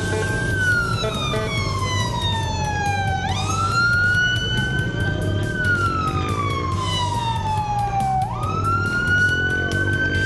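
A vehicle siren wailing in a slow cycle: the pitch jumps up, holds briefly, then slides slowly down, twice over, over a steady low rumble.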